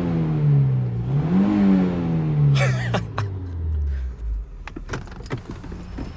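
Honda Civic engine, just started with the neutral safety switch bypassed, revved twice and then dropping back to a low steady idle.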